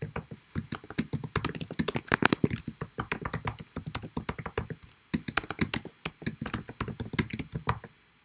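Computer keyboard typing: quick runs of keystroke clicks, with a short pause about five seconds in.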